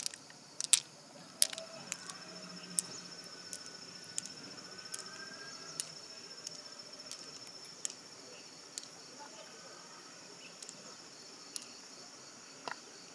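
Loose pearls clicking sharply against one another and against a shell dish as they are handled and set down, in irregular clicks that are most frequent in the first couple of seconds. Behind them runs a steady high insect trill, which fades after about two-thirds of the way.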